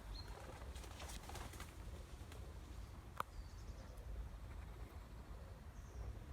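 Faint outdoor ambience: a few short bird chirps over a steady low rumble, with a single sharp click about three seconds in.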